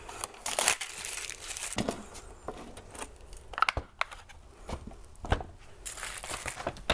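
Thin plastic packaging crinkling as a suet cake is peeled out of its clear tray, with scattered sharp clicks from handling a wire suet cage.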